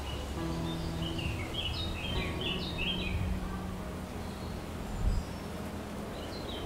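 Birds chirping in quick runs of short, high notes during the first half, over a low, steady hum of outdoor background noise.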